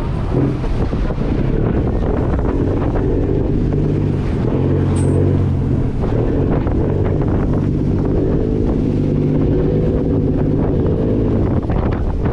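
Fishing trawler's diesel engine running steadily at sea, with wind buffeting the microphone and waves washing against the hull.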